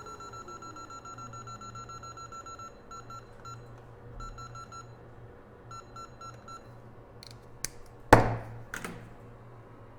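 Rapid high electronic beeping from the rework bench equipment, continuous at first and then in short groups, stopping about six and a half seconds in, while a low hum falls in pitch over the first two seconds. A loud sharp knock just after eight seconds in, with smaller clicks around it.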